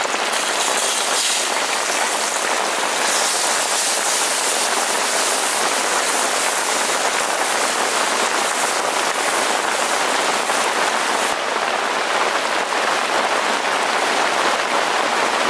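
Wet ground chilli and garlic paste sizzling in hot coconut oil in a clay pan as it is stirred with a spoon. The sizzle is steady and loud.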